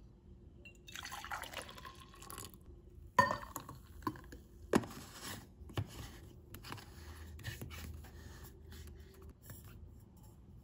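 Espresso poured from a small glass into a travel thermos. About three seconds in comes a sharp clink, the loudest sound, followed by a run of small clicks and knocks as the thermos lid is fitted and the thermos is handled on a marble counter.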